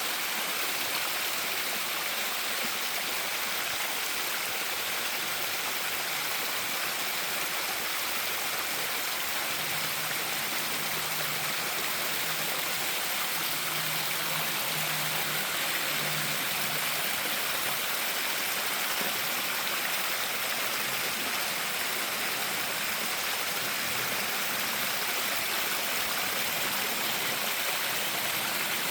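Stream water running steadily, an even rushing splash with no breaks.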